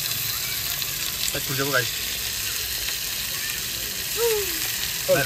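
A steady hiss, with a few faint voices now and then.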